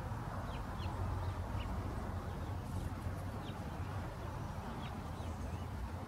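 Small songbirds giving a scattering of short, high chirps, heard several times over a steady low rumble.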